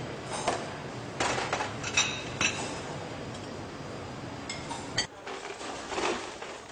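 Crockery and cutlery clinking: a string of sharp clinks with short ringing tones, over the steady background hubbub of a busy canteen.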